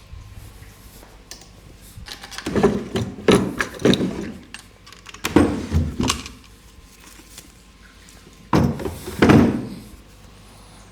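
Several short thumps and rustles of people shifting and being handled on a padded treatment table, coming in three clusters about two to three seconds apart.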